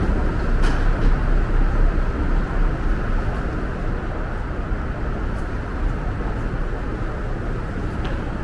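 Steady low rumble of subway station ambience, with a few faint clicks near the start and again near the end.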